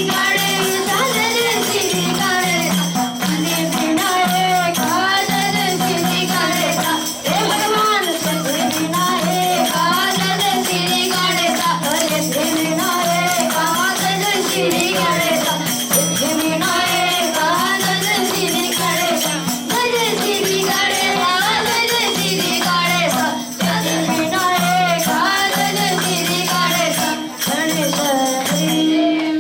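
A Hindu devotional bhajan sung by young Vedic students, with shaken jingling percussion and a steady drone underneath; the music stops right at the end.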